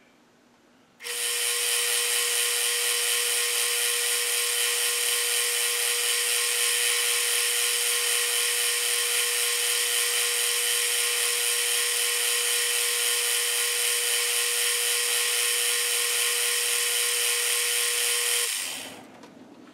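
Metal lathe running under a slow facing cut on a steel rod held in a four-jaw chuck: a steady, even machine whine with one strong held tone. It starts abruptly about a second in and fades out near the end.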